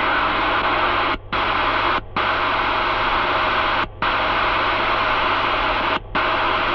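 AM CB radio static hissing from a President Truman CB's speaker as the receiver is flicked up through the channels, the hiss cutting out briefly four times at the channel changes.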